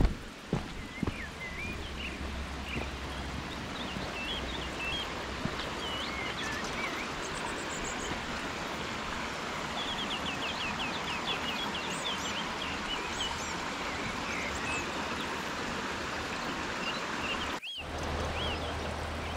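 Shallow rocky stream running steadily over stones, with small birds chirping and trilling above the rush of water. The sound drops out for a moment near the end.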